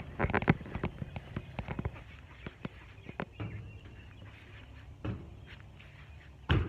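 Irregular clicks, knocks and rustling of things being handled, thickest in the first two seconds, with one louder thump near the end.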